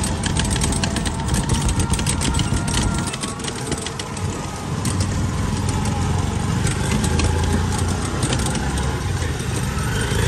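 Three-wheeled rickshaw riding along a wet road: a steady rumble of the vehicle and its tyres on wet pavement, with frequent small clicks and rattles.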